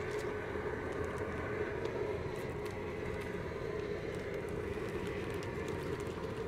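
Large aluminum seafood-boil pot of water at a rolling boil over its outdoor burner: a steady rumble with a low hum.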